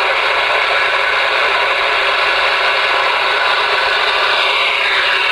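Galaxy DX-98VHP radio's speaker giving a steady rush of receiver static, the squelch open on an on-air channel. A faint whistle slides down in pitch near the end.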